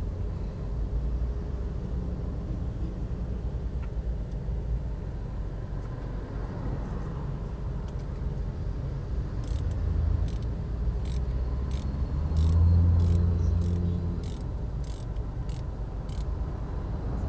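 A low steady rumble that swells briefly about twelve seconds in. From about nine seconds in there is also a run of about a dozen light clicks, roughly two a second.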